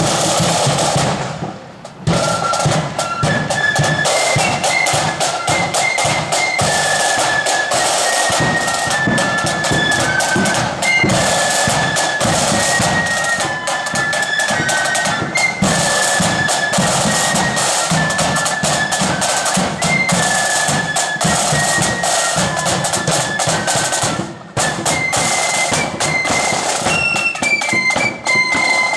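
Marching flute band playing: snare drums and a bass drum, with the flutes coming in about two seconds in, after a brief pause, to carry a tune over the drumming. The music breaks off briefly once more late on.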